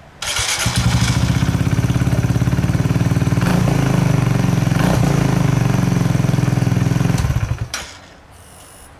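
Kawasaki Z125 Pro's 125 cc single-cylinder four-stroke engine starting on the first try through a freshly fitted OVER Racing TT-Formula RS exhaust. It idles steadily for about seven seconds, then is switched off near the end.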